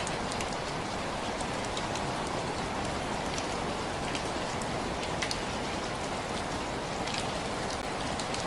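Steady rain falling, an even hiss with scattered sharp drops ticking on a surface.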